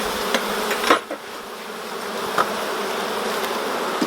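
Honeybees buzzing steadily around an open hive, with a single sharp knock just before a second in.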